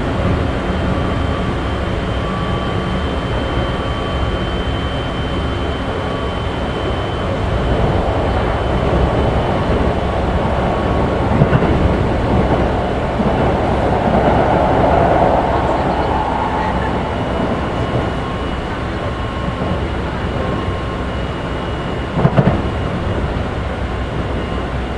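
Running sound heard inside the motor car of a Keikyu 1500 series train with Mitsubishi GTO-VVVF traction equipment, travelling at speed. It is a steady rumble of wheels on rail with faint steady whine tones. A swell of noise rises in the middle, and there are two short sharp knocks, about halfway through and near the end.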